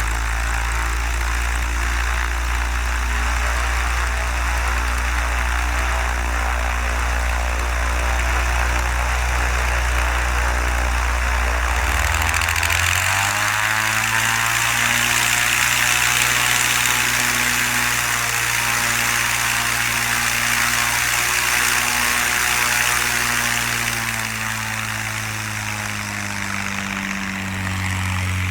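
Light single-engine propeller airplane's engine running steadily. About halfway through, its pitch rises as power comes up, and it holds higher before easing back near the end.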